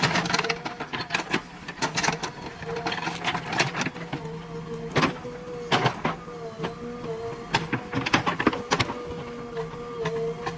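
JCB backhoe loader at work: a steady whine from the engine and hydraulics, with many sharp knocks and clanks scattered through it.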